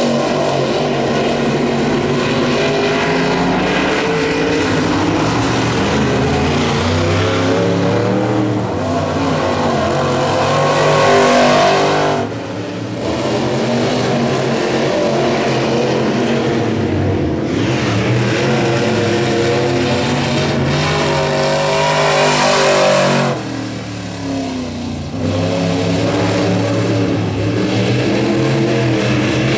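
Crate late model dirt race car V8s running hard qualifying laps, the engine note rising and falling as the cars accelerate down the straights and lift into the turns. The sound is loudest about eleven and about twenty-two seconds in, each time dropping off suddenly just after.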